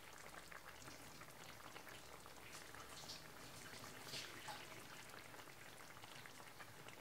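Curry chicken simmering in a stainless steel pot on the stove, a faint crackle of small bubbles with a few light pops.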